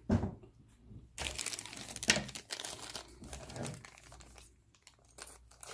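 Plastic bag crinkling and rustling as it is handled and opened, in irregular bursts, with a brief tearing sound near the start.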